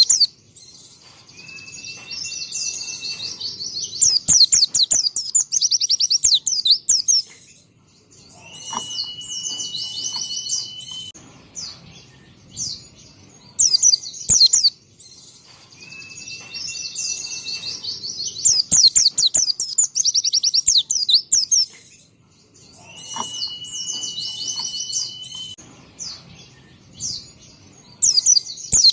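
White-eye (pleci) singing: fast runs of high chirping notes over a held steady whistle, in a sequence that repeats about every fourteen seconds.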